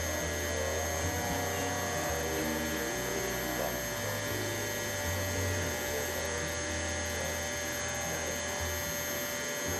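Electric pressure washer running with a surface cleaner spraying across deck boards: a steady motor hum over constant water spray noise.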